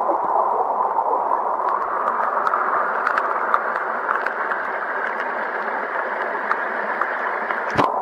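Mountain stream water rushing, heard by a camera held under and at the water surface: a steady, dull rush with scattered small ticks, and a single knock just before the end.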